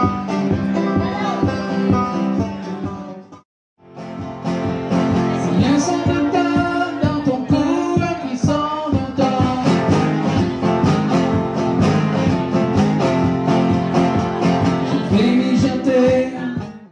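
Live acoustic music: banjo and acoustic guitar picking. It cuts off suddenly about three and a half seconds in, and a different song on two acoustic guitars begins a moment later.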